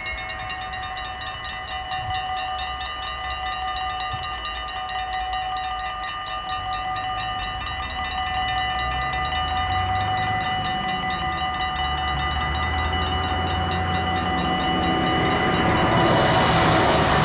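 Dutch level-crossing warning bell ringing in a rapid, even rhythm while the crossing's lights flash and its barriers come down. From about halfway a low rumble builds, and near the end a rushing noise swells and the whole sound grows louder.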